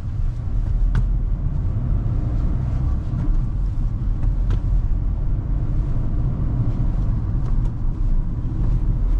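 Steady drive noise of a Kia Seltos heard from inside the cabin while it is being driven: a continuous low engine and road rumble.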